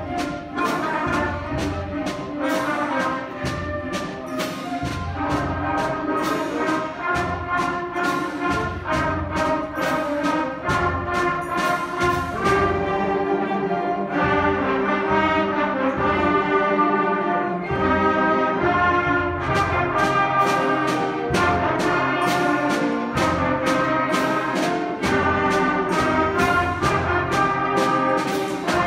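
Sixth-grade concert band playing: brass and woodwinds hold chords over a steady beat of percussion strokes. The percussion drops out for about seven seconds near the middle, leaving only the held wind chords, then comes back in.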